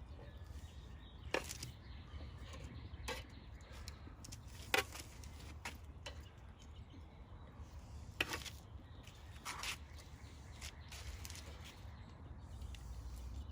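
Chicken legs being laid on a Weber kettle's grill grate: a handful of separate sharp clicks and knocks spread out over a steady low rumble.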